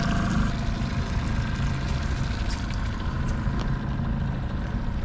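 Outboard motor running steadily at slow trolling speed, a low even hum.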